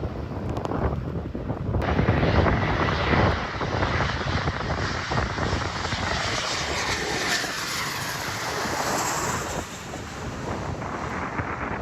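Airplane engines running loud as a plane passes along a wet runway. The noise swells sharply about two seconds in and eases off near the end.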